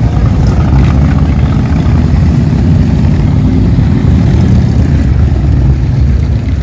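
Several cruiser and touring motorcycles riding slowly past, a loud, steady, low engine rumble.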